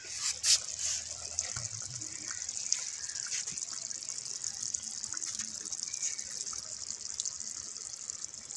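A clay cooking pot (handi) knocks and scrapes a few times in the first second as it is lifted off the stove and set down. A steady high hiss runs under it.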